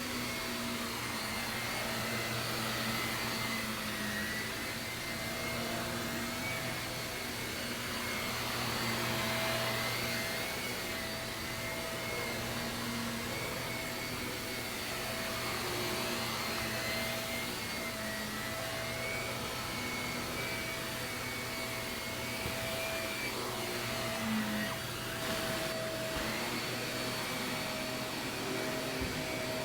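Shark vacuum cleaner running steadily on carpet, a motor hum with a high whine that wavers slightly in pitch.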